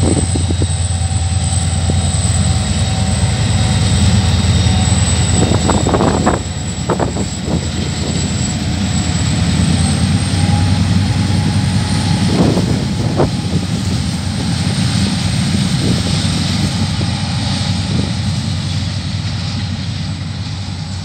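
Freight train passing close by, hauled by two KiwiRail diesel-electric locomotives: a loud low engine drone with a steady high whine, strongest in the first six seconds. The drone then gives way to the rolling rumble of the container wagons, with a few sharp knocks, fading slightly near the end.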